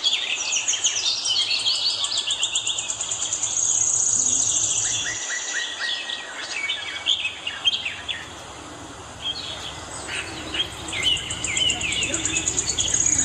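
Many small caged birds chirping and trilling at once, a dense chorus of high, quick chirps and fast buzzy trills that thins out for a while past the middle.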